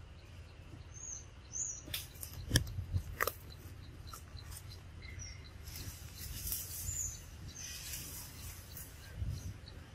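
Birds chirping a few times over a faint, regular high ticking, about two ticks a second. Three sharp clicks come about two to three seconds in.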